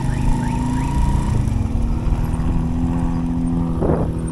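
Suzuki GS150SE motorcycle's single-cylinder four-stroke engine running steadily while riding, with rough road and wind noise underneath. There is a brief rush of noise near the end.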